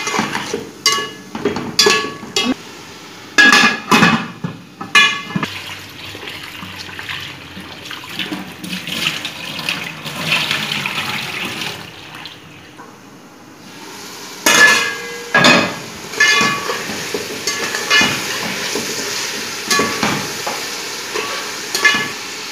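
A metal spatula knocking and scraping against a metal cooking pot as chicken is stirred, each strike leaving a short ring. In the middle, water runs at a sink as rice is rinsed in a plastic bowl. Near the end, the spatula clinks against the pot again.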